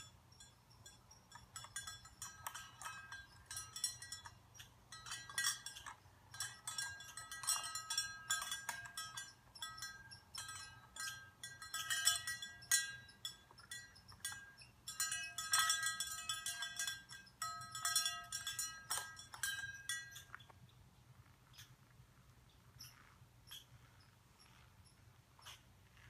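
A cowbell at the top of a climbing rope, rung over and over in clanking bursts. It starts about two seconds in and stops about twenty seconds in.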